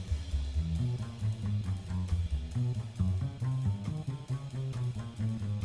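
Upbeat background music with drums, bass and guitar at a steady beat.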